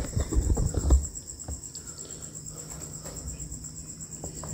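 Crickets chirping in a steady, high, evenly pulsing trill. A few low thumps and rustles sound in the first second.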